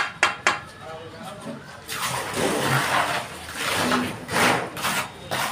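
Three sharp knocks in quick succession as freshly laid bricks on a brick pillar are tapped into place. About two seconds later comes a few seconds of rough scraping, a mason's trowel working cement mortar.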